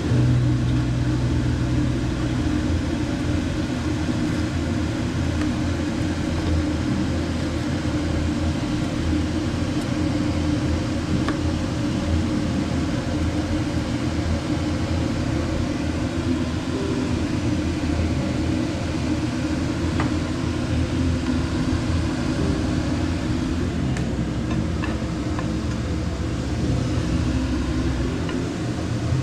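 Chuletón (bone-in ribeye) cooking in a pan with butter, heard as a steady low rumble and hum with a faint even sizzle above it and a few small clicks.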